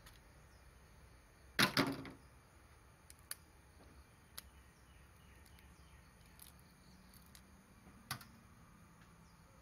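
Raw crab shell being pulled apart by hand, with a loud cluster of cracks and snaps about one and a half seconds in, a few small clicks, and one more sharp crack near the end.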